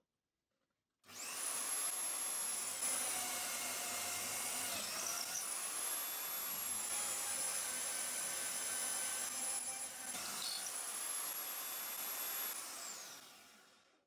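Corded electric drill mounted in a drill stand, starting up about a second in and running with a high motor whine while its bit bores through a hardwood strip. The pitch dips briefly twice under load, and near the end the motor is switched off and winds down with a falling whine.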